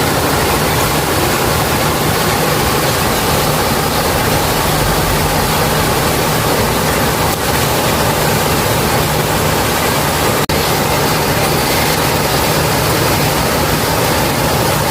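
Waterfall: a constant loud rush of falling water, with a momentary dropout about ten and a half seconds in.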